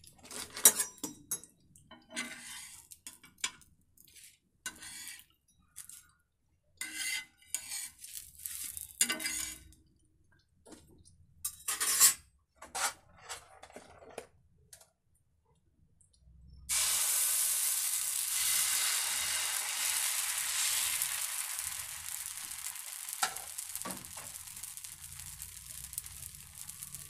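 Utensils scraping and clinking on a dosa tawa in short, irregular strokes. About two-thirds of the way through, dosa batter hits the hot tawa with a sudden loud sizzle that slowly fades as it is spread.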